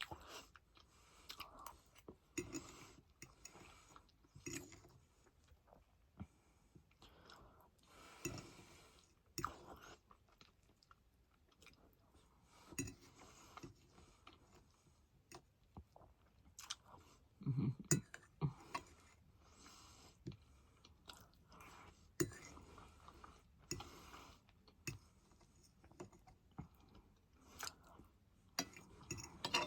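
A person chewing food close to the microphone: irregular wet mouth sounds and small clicks, with a louder stretch about eighteen seconds in.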